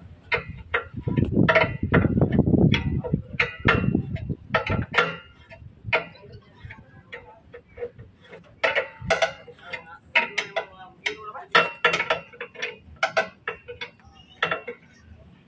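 Metal wrenches clicking and knocking against the fittings and air lines of a truck's air dryer as they are loosened by hand: irregular sharp ticks, with a denser stretch of scraping and handling about one to four seconds in.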